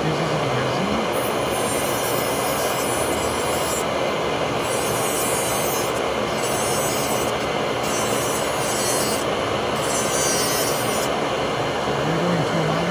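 Dental lab rotary handpiece spinning a thin separating disc, cutting the printed support struts off a 3D-printed wax full-arch framework. It is a steady grinding whir, and its bite comes and goes as the disc touches and leaves the wax.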